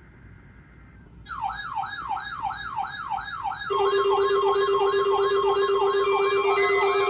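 Electronic emergency alert signal: from about a second in, a siren-like tone wavers rapidly up and down about four times a second. Partway through, a loud steady low tone and further beeping tones join it, making a layered, dissonant alarm.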